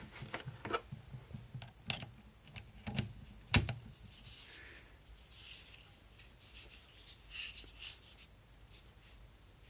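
Clicks and knocks of a small cordless screwdriver being handled, plastic parts tapping and snapping, with one sharper knock about three and a half seconds in and soft rubbing later on; the motor is not running.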